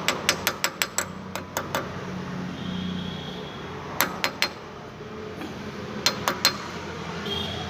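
Sharp light metallic taps in quick runs of several at a time: the dust cap being tapped into place over the hub nut on a wheel hub.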